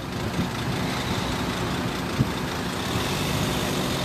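A slow line of cars idling and creeping forward, engines running steadily.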